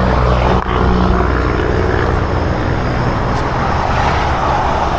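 A motor running steadily, a low even hum under a wash of outdoor noise.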